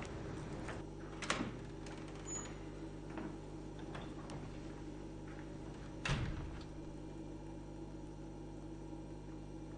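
A glass entrance door being opened with a sharp knock, then, about six seconds in, swinging shut with a louder, heavier thud. There are a few light clicks in between, over a steady low hum.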